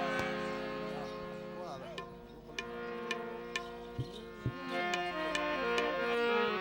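Instrumental interlude of Gujarati folk devotional music: a harmonium holds and steps through a melody while a tabla plays sharp strokes, with a couple of deeper bass strokes about four seconds in.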